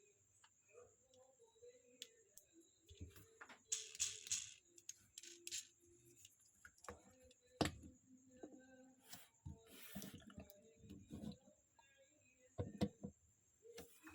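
Faint handling noise from unboxing small Tomica toy motorcycles: scattered clicks and taps, with short rustles of packaging about four seconds in and again about ten seconds in.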